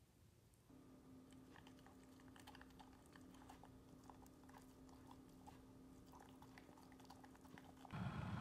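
Shiba Inu eating from a stainless steel bowl: many quick crunches and clicks of teeth and food against the bowl, over a steady low hum. Near the end a louder steady rushing noise cuts in.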